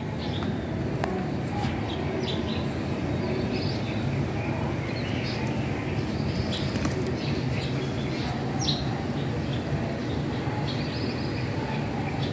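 Steady low outdoor rumble with scattered short, high bird chirps.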